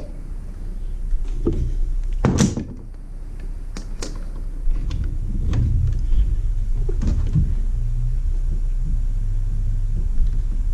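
Handling noise: several short clicks and knocks of small objects being picked up and moved, over a steady low hum.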